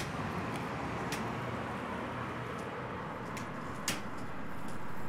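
Steady outdoor street background noise with a few faint ticks and a soft tap about four seconds in.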